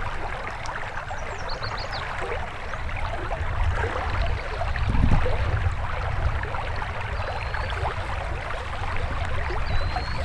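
River current flowing and babbling close to the microphone, with a low steady rumble underneath. A few faint high chirps come through, near the start and again later on.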